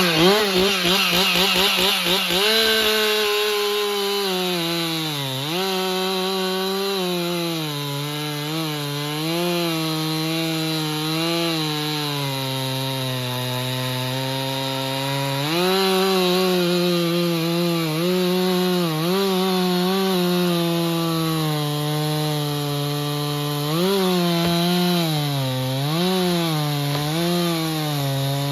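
Chainsaw with a dull chain revving up and then cutting into a big-tooth aspen trunk, its engine note sagging and recovering again and again as the chain bites under load.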